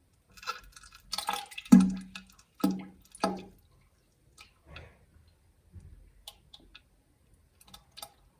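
Comic poop sound effect: a run of about five short, wet spluttering bursts and plops, the loudest about two seconds in, trailing off into faint drips and ticks.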